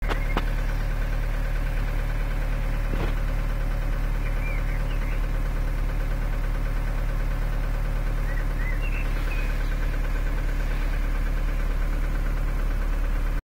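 2006 Opel Astra H engine idling steadily.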